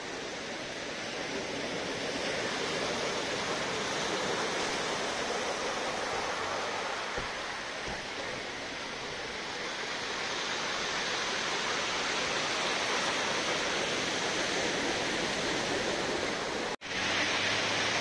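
Sea waves breaking and washing up a beach: a continuous rushing surf that swells and eases slowly. The sound cuts out for an instant near the end.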